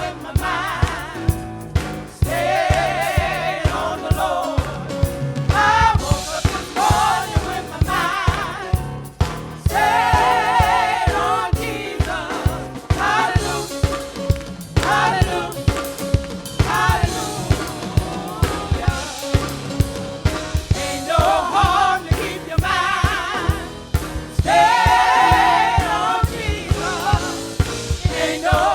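Gospel choir singing with vibrato over a band with a steady drum beat.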